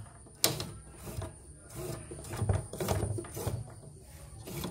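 Light clicks and knocks of a portable embroidery machine's opened plastic casing and parts being handled, with one sharper click about half a second in.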